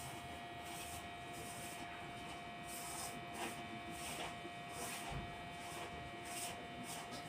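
Hands rubbing and mixing finger-millet and wheat flour in a steel bowl: faint, irregular soft swishes and scrapes of flour and fingers against the metal.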